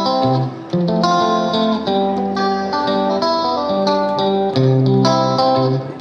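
Background music: a plucked guitar melody over chords, one note after another.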